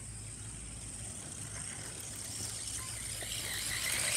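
Small electric radio-controlled toy car running, its motor and tyres growing louder near the end as it comes closer across the concrete, over a steady high hiss.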